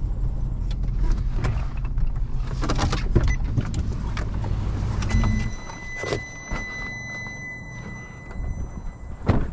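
Nissan pickup truck's engine running with a deep rumble that stops about halfway through. A steady high electronic beep then sounds for about four seconds, with a few clicks and knocks from the truck's door.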